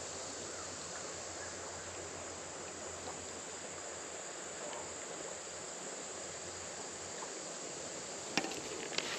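Steady hiss of flowing creek water under a high, even insect buzz, with two sharp clicks near the end.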